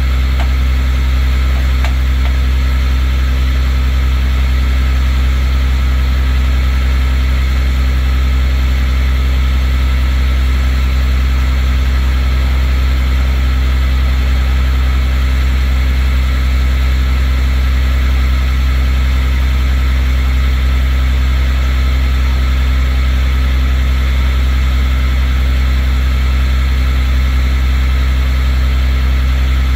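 A vehicle engine idling steadily, a loud, deep hum that doesn't change.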